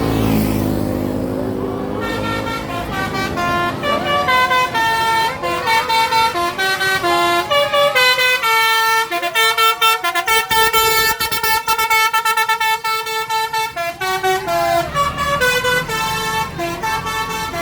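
Bus 'telolet' basuri horn, a multi-tone musical air horn, playing a fast melody of short stepped notes after a vehicle passes in the first two seconds.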